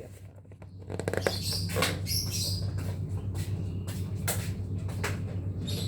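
Several knocks and clinks of dishes and utensils being handled, over a steady low hum, with a couple of short high squeaks.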